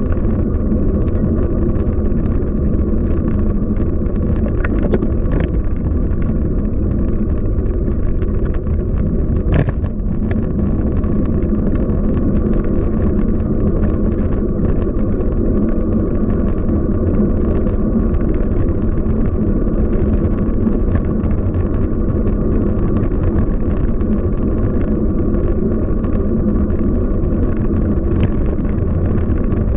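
Steady low rumble of a bicycle ride through city streets: road and wind noise on the microphone, mixed with car traffic. A single sharp click comes about ten seconds in.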